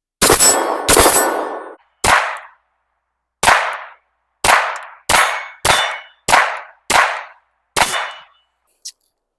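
CZ P-10 9mm pistol firing ten shots of 115-grain Remington ammunition at a steady pace, about one shot a second with the first two a little closer together, each with a short ringing echo. The ten-round magazine is emptied with no malfunction.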